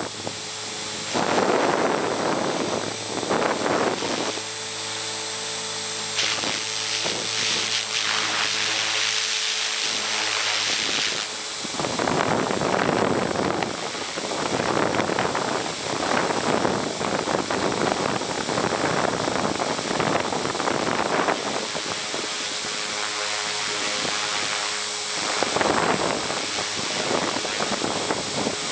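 Align T-Rex 450 Sport electric RC helicopter in flight, heard from its onboard camera: a steady high whine from the motor and drivetrain over the rushing of the rotor blades. The rushing swells and fades every few seconds as the helicopter moves.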